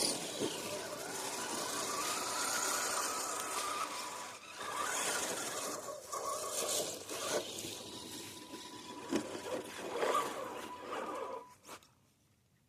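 Radio-controlled rock crawler driving over hard ground: the small electric motor and gears whine, rising in pitch early on, while the tyres and chassis scrape and knock. It goes quiet about a second before the end.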